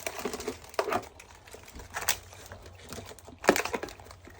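Irregular clicking and scratching from live blue crabs' hard shells and claws as they are handled, with one louder knock about three and a half seconds in.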